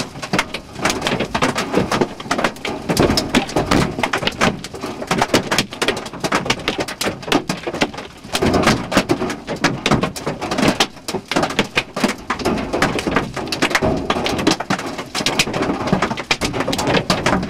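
Hail and rain pelting the car's roof and windshield from inside the cabin: a dense, irregular clatter of many small impacts over a steady wash of rain noise.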